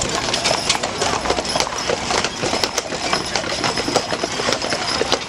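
Shod hooves of a draft-horse team clopping on asphalt as a wooden, spoked-wheel covered wagon rattles and clatters past, a busy run of uneven knocks.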